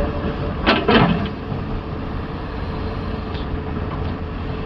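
Komatsu PC500 hydraulic excavator's diesel engine running with a steady low rumble, with two short clanks about a second in.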